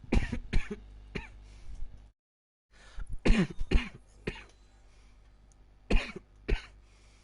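A person coughing hard in fits. There are two coughs near the start and then a few weaker ones. Around the middle comes a run of several harsh coughs with a rough, voiced edge, and two more single coughs follow near the end.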